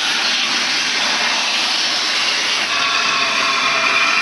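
Steam locomotive letting off steam: a steady rushing hiss, with a faint pitched note joining it after about two and a half seconds.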